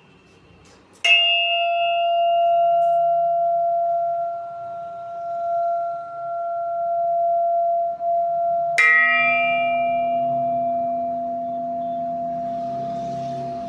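Metal sound-healing instruments struck twice, each strike ringing on in a long, steady tone whose brighter overtones fade within a couple of seconds. The first tone wavers slowly in loudness as it rings; the second strike, about eight seconds in, adds a lower tone that sounds together with the first.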